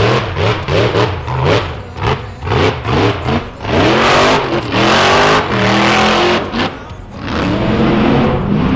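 Rock bouncer race buggy's engine revving hard in quick throttle blips, its pitch jumping up and dropping again and again, with a long loud burst of throttle about four seconds in. Near the end it settles into a steadier run with the pitch climbing.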